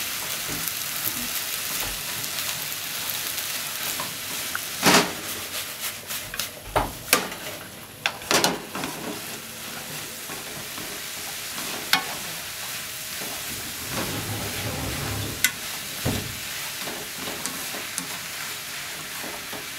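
Cabbage and enoki mushrooms sizzling in a frying pan as they are stir-fried, a steady frying hiss with the scrape of a wooden spatula and chopsticks stirring. Sharp knocks of the utensils against the pan come in a cluster about five to nine seconds in, and singly a few more times later.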